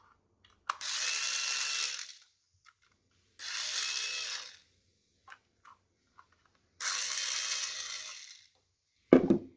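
A small handheld power tool's motor runs with a steady whine in three short bursts of about a second each.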